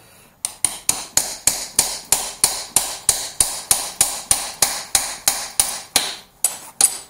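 A claw hammer striking metal at a dirt bike's rear axle: a steady run of sharp blows, about three a second, to loosen and knock out the axle so the rear wheel can come off.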